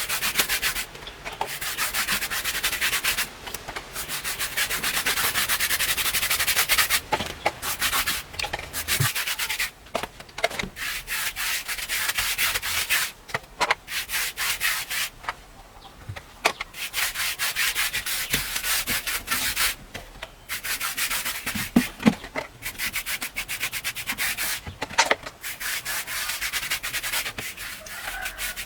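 Repeated rough scraping and rubbing strokes on a hard surface by hand, broken now and then by short pauses.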